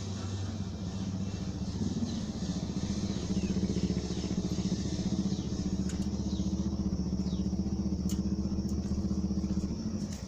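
A small engine running steadily at a constant speed, dropping away about half a second before the end.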